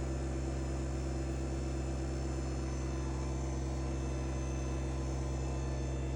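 Kubota BX24 compact tractor's three-cylinder diesel engine running at a steady speed, an even drone with no change in revs.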